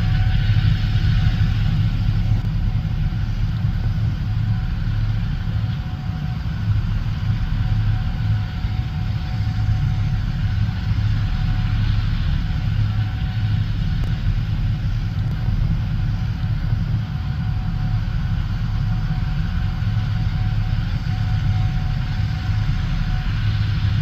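Gleaner S77 combine harvester running steadily while harvesting corn: a constant low engine rumble with a faint steady whine above it.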